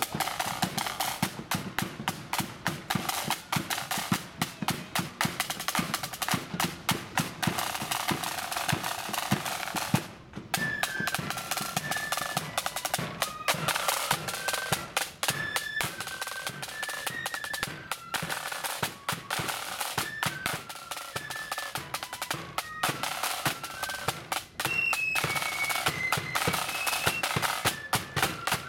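Marching flute band: snare side drums play rolls and beats with a bass drum for about ten seconds, then, after a brief break, the flutes come in with a marching tune over the drums.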